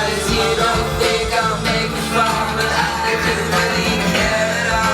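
A song playing back loudly: a sung vocal hook over a backing track with guitars.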